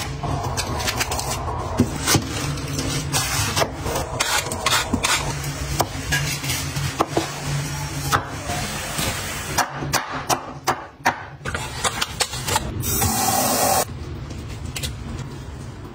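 Chef's knife slicing bell pepper and broccoli on a wooden chopping board: many sharp knocks of the blade on the board with crisp cutting sounds. Near the end, water splashes as kelp is rinsed in a colander.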